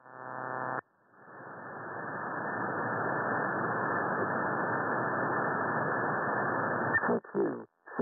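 Shortwave receiver hiss heard through the SDR's audio, narrow-band with nothing above about 2 kHz. It is preceded by a brief buzz, rises over a couple of seconds and then holds steady. Near the end a click is followed by choppy voice fragments coming through the receiver.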